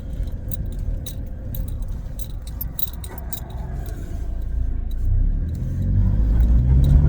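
Ute driving, heard from inside the cab: low engine and road rumble with light clicking and rattling throughout. The engine gets louder about five seconds in.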